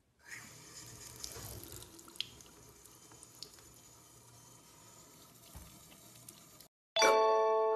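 Bathroom sink faucet turned on and running a thin stream into the basin, a low, even splashing. Near the end it cuts off and bright, much louder chiming music starts suddenly.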